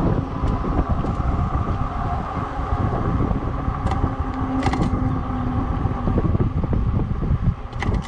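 Wind buffeting the microphone and tyre rumble as a Lectric XP fat-tire e-bike rolls along a paved street, with a faint steady hum underneath and a few light clicks.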